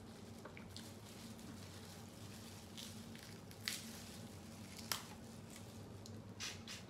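Snow crab shells cracking and snapping as the legs are broken apart by gloved hands, with wet squishing of the meat; a few sharp cracks, the loudest about three and a half and five seconds in.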